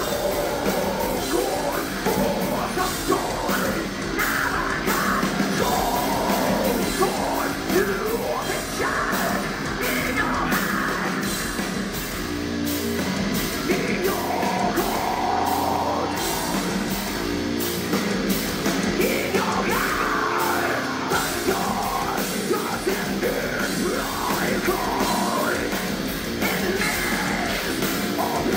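Heavy metal band playing live: electric guitars, drums and a woman's vocals over the PA, heard from within the crowd.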